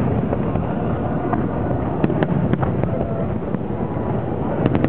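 Aerial fireworks display: a continuous low rumble of shell bursts, with a few sharp cracks breaking through now and then.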